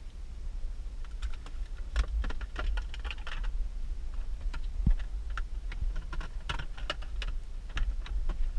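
Irregular light clicks and rustles of hand handling inside a car cabin, several a second, over a steady low rumble.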